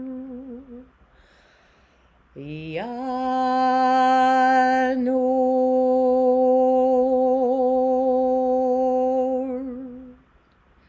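A voice chanting the Sufi divine name "Ya Nur" in long held tones: one note fades out about a second in, and after a short pause a new note scoops up in pitch and is held steady, with a slight waver, for about eight seconds before fading.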